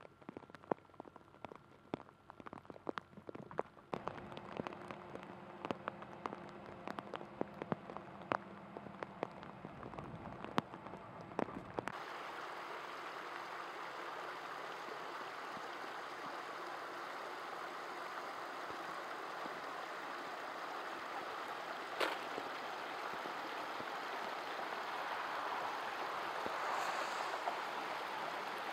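Raindrops falling into a puddle on wet ground, many separate drops ticking. About twelve seconds in this changes to the steady rush of rain runoff flowing down a concrete drainage channel and over debris, growing a little louder near the end.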